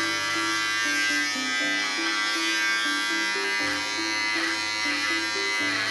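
Corded electric pet clipper buzzing steadily as it is worked through a West Highland White Terrier's thick coat; the owner finds it short on power. Background music with a low melody of short notes plays along with it.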